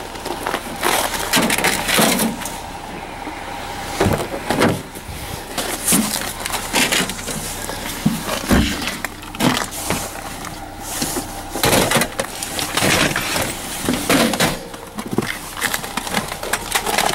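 Discarded electronics and junk being rummaged through and shifted in a dumpster: irregular knocks, clatters and scrapes of items being moved.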